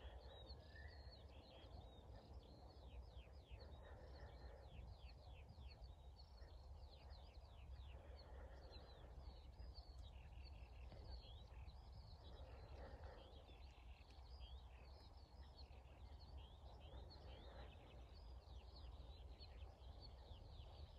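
Faint twittering of many small birds, a dense stream of quick down-slurred chirps, over a low steady rumble.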